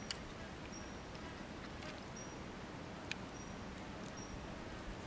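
Eating fish with the fingers: a few sharp mouth clicks and smacks, the loudest moments, near the start, around two and three seconds in, and at the end. Behind them a small creature repeats a short, high chirp about once a second.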